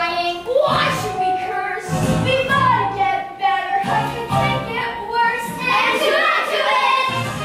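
A group of children singing together over a musical accompaniment with a steady low beat.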